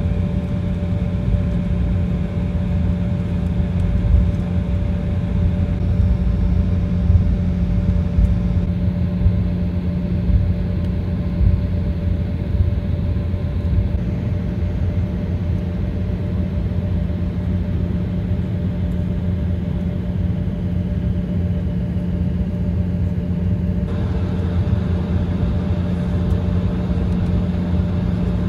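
Cabin noise inside an Embraer E175 jet airliner: the engines running steadily under a low rumble with a constant hum, with a few brief louder bumps in the first half.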